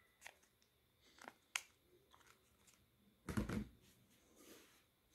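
Faint small plastic clicks as a flip phone's back battery cover is pressed and handled, followed about three seconds in by a brief louder rustle and bump as the phone is put down.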